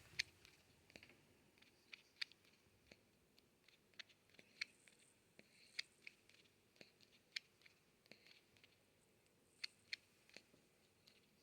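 Faint, sharp mouth clicks from a baby porcupine, irregular and about one a second.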